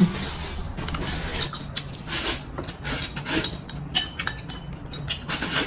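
Irregular scraping strokes and light clicks of chopsticks and utensils against bowls and plates during a meal of stir-fried rice noodles.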